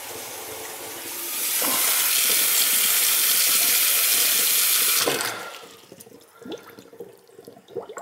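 Kitchen faucet running a stream of water into a stainless steel sink and down its drain. The stream gets louder about a second in and is shut off about five seconds in, leaving a few small drips. The water goes down freely, so the repaired drain is draining.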